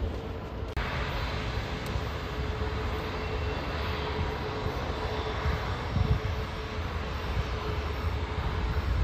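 Airbus A380 jet engines running at taxi power: a steady rushing noise with a faint constant whine, and low rumbles that swell about six seconds in.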